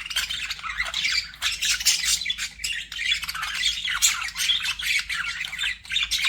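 Budgerigars chattering: a continuous stream of short, rapid chirps and warbles with no pauses.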